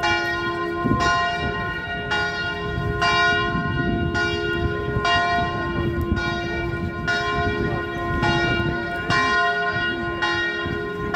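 Church bell tolling steadily, about one stroke a second, each stroke ringing on into the next, over the low rumble of a crowd walking.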